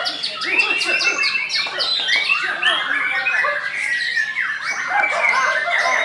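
White-rumped shama singing a dense, unbroken run of quick, varied whistles and sharp chattering notes.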